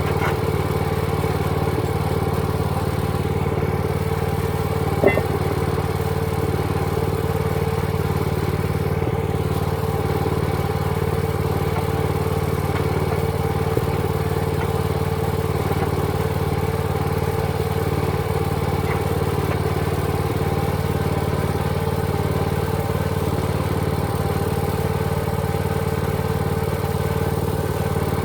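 An engine running steadily at an unchanging speed, with one sharp click about five seconds in.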